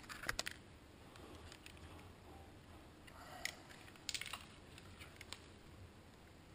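Faint handling noise: clicks and light rustles of hands moving cables and a small plastic box. There are a few sharp clicks in the first half second and a quick cluster of clicks about four seconds in.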